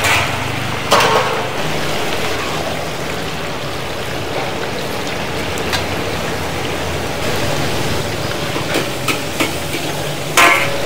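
Hot oil sizzling steadily as stuffed tofu deep-fries, with a low hum underneath. A few clinks break through, the loudest near the end.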